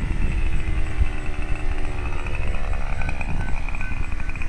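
Fox .45 glow engine of a model airplane running steadily at a distance with a thin, high whine, over a constant low rumble.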